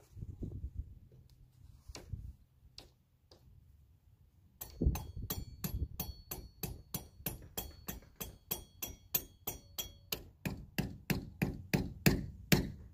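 Rubber mallet knocking in a steady rhythm, about three blows a second, starting about halfway in and growing louder toward the end; a few faint clicks before it.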